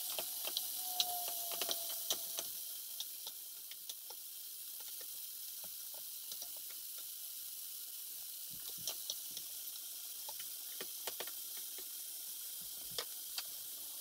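Beef chunks searing in hot olive oil in skillets: a steady high sizzle with scattered crackling pops, busier in the first couple of seconds while the pieces are being turned.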